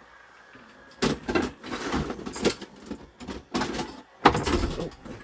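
Irregular clattering and scraping of hard objects being rummaged through and moved about, starting about a second in, with the loudest knock about four seconds in.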